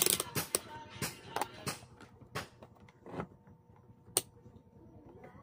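Irregular clicks and knocks from a multimeter and its test probes being handled on a wooden bench, sharpest at the start and about four seconds in, over faint background music.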